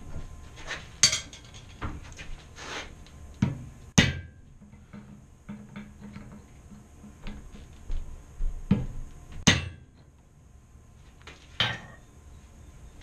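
Hand hammer striking hot steel clamped in a bench vise: irregular blows, a few loud ringing metallic strikes among lighter taps, with a quieter stretch in the middle. The steel is being bent and shaped, the arms and claws of a forged scorpion.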